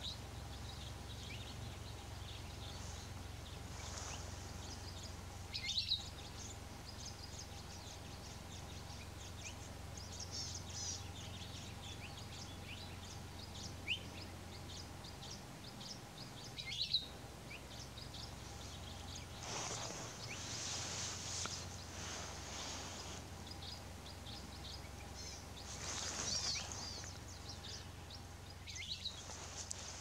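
Palila (Hawaiian honeycreepers) calling: many short, high chirps throughout, with a few louder calls about six, seventeen and twenty-nine seconds in, over a steady low background rumble.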